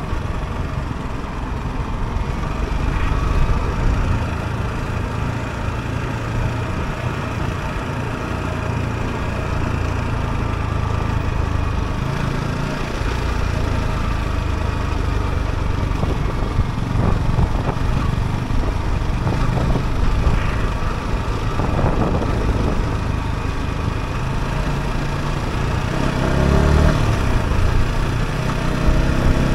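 Yamaha R125's single-cylinder four-stroke engine running while the motorcycle is ridden. The engine note rises and falls with the throttle, climbing in revs near the end.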